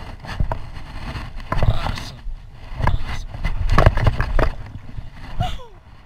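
Hands splashing and sloshing in shallow river water, with rustling and scraping knocks close to the microphone and a low rumble; the loudest bursts come about one and a half, three and four seconds in.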